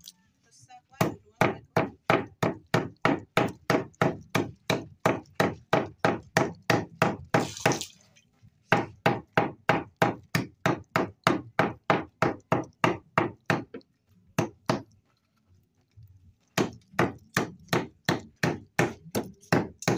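A long rusty blade chopping small fish on a wooden board, in quick even strokes about four a second. The chopping breaks off briefly a couple of times and stops for about two seconds near the three-quarter mark before going on.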